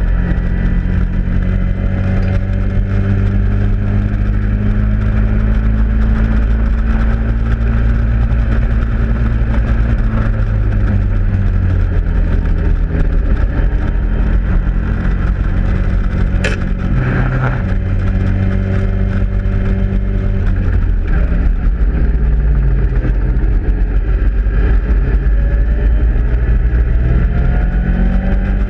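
Caterham Seven race car's four-cylinder engine heard from the open cockpit under hard racing, revs held high, then dropping around ten seconds in, with a sharp click a little past halfway. Near the end the revs climb in steps as it accelerates up through the gears.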